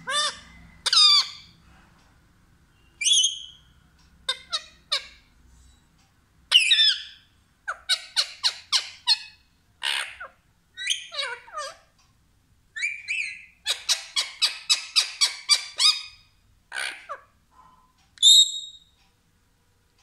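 Rose-ringed parakeet giving a string of short, sharp squawks and chattering calls, with a quick run of about a dozen calls a little past the middle and a loud call near the end.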